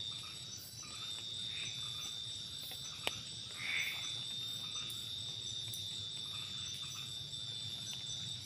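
Night insects trilling steadily in a high continuous tone, with frogs calling now and then. A single sharp click about three seconds in.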